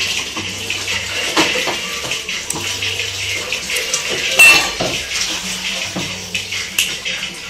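Clinking and clattering of metal objects, with scattered knocks and one loud ringing metallic clang about four and a half seconds in.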